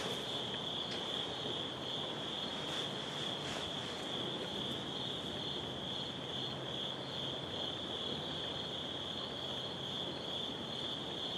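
Night insects chirring in a steady, unbroken high-pitched drone.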